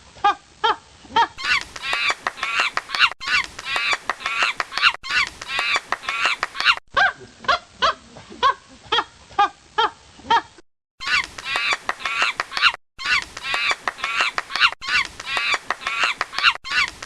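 Monkeys calling: rapid runs of short, high, repeated chattering calls, from several recordings joined together, with two brief breaks about two-thirds of the way through.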